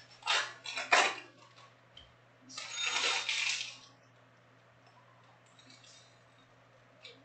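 Hands handling stacks of trading cards and foil pack wrappers on a tabletop: two sharp knocks within the first second, then a rustle lasting about a second.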